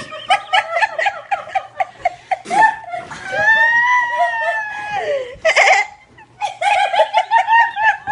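People laughing hard, in quick high-pitched bursts of giggling. A long drawn-out high note rises and then falls away in the middle.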